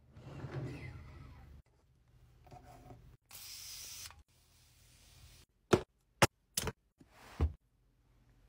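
Beauty items being handled in a vanity drawer: a rustling clatter as facial rollers are set in the drawer, a short hiss about three and a half seconds in, then four sharp clicks and taps near the end.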